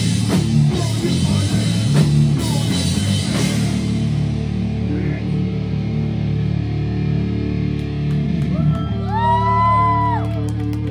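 Live rock band with distorted electric guitars, bass and drums. About four seconds in the drums stop and the band holds a ringing chord, with a high note sliding up and down over it near the end.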